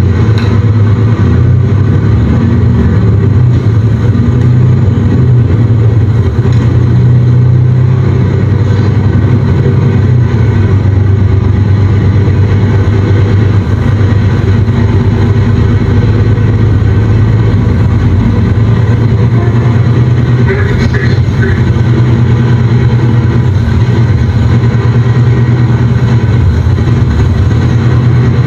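Nova Bus LFS city bus heard from inside the cabin as it drives, its engine and drivetrain making a steady low drone with road noise.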